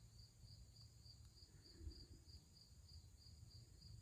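Near silence with faint insect chirping: a high, even pulse about three times a second, over a low rumble.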